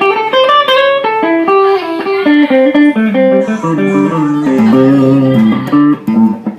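Fender Squier electric guitar played as a quick melodic run of single notes, opening with a slide up. Near the end a few notes sound together and hold longer.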